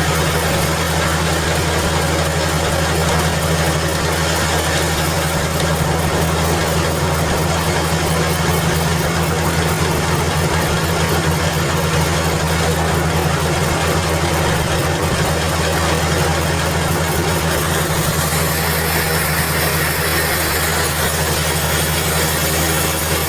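Sawmill band saw machinery running steadily: a constant low engine-like hum with a noisy wash over it.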